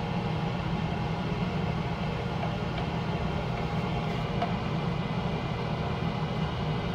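Steady low mechanical hum, even throughout, with no distinct clicks or knocks.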